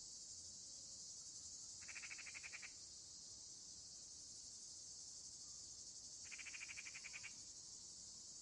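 Faint, steady evening chorus of crickets and other insects, high-pitched and unbroken. Twice, about two seconds in and again near six and a half seconds, a short rapid pulsed trill of about a second rises over it.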